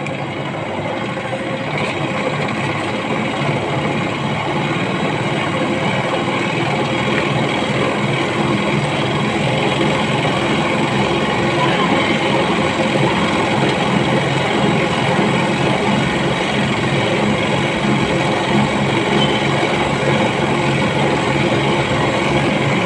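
Cotton candy machine running steadily, its motor and spinning head giving an even mechanical whir while pink floss forms in the bowl.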